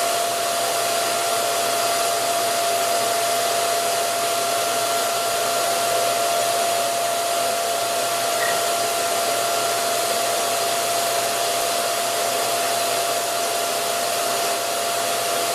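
Steady whooshing air noise of a running fan-type machine, with a constant mid-pitched whine.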